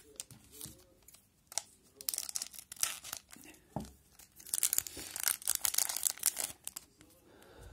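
The wrapper of an O-Pee-Chee hockey card pack being torn open and crinkled by hand: several bursts of crackling, with the longest stretch a little past the middle.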